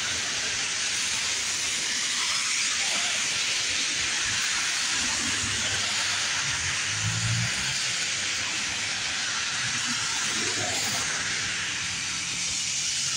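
Steady hiss of heavy rain mixed with car tyres swishing through water on a flooded road, with a brief low engine rumble about seven seconds in.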